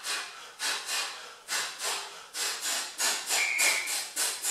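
A man's short, sharp hissing exhalations, about three a second, each pushed out with a shadowboxing punch, elbow strike or uppercut during a hard Tabata interval.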